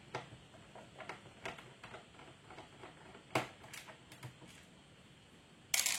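Screwdriver backing out a small bottom-case screw of a laptop: faint, irregular ticks and clicks, with a sharper click about three and a half seconds in and a short louder rattle near the end.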